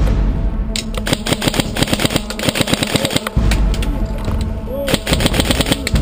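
Airsoft electric rifle (PTW) firing full-auto: a fast run of sharp clacks lasting about two and a half seconds, then another short burst near the end, over a low rumble.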